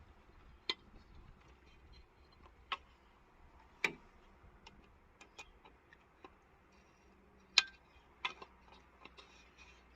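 Scattered sharp metallic clicks and taps of tools and hose-clamp parts being handled during a power steering hose job, about half a dozen spread irregularly, the loudest about four seconds in and near the end.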